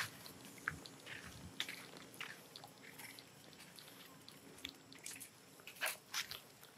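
Scattered soft crackles and clicks of macaques moving over dry leaves and sandy ground, with a few sharper clicks near the end.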